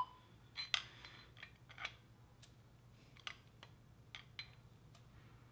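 Faint, sharp metallic clicks and taps, spaced irregularly about once a second, as a crankshaft is shifted back and forth in a freshly assembled small-block Ford 5.0 block during an end-play check.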